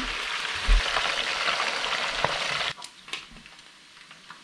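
Pieces of steelhead deep-frying in hot oil in a wok, sizzling steadily, with a low thump about a second in. About two-thirds of the way through the sizzle drops suddenly to a much quieter level, with a couple of light clicks.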